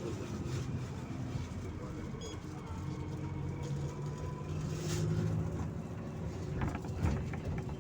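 MAZ-206 city bus heard from inside the passenger cabin while driving: a steady engine hum with road and rattle noise, the engine note swelling a little about halfway through, with a few short knocks near the end.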